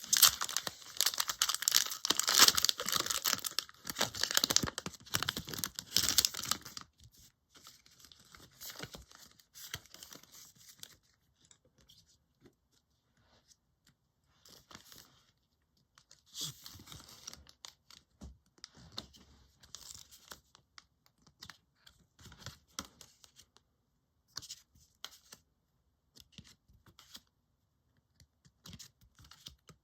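Foil Pokémon booster pack wrapper being torn open and crinkled for about the first seven seconds, then faint, scattered rustles and clicks of trading cards being handled.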